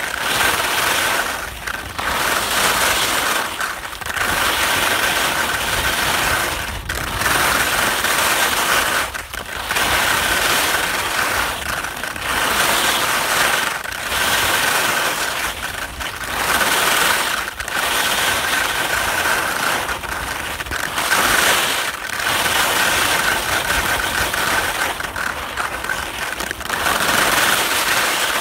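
Skis scraping and chattering over rippled, crusty spring snow during a descent, the noise swelling and easing with each turn, roughly every two seconds.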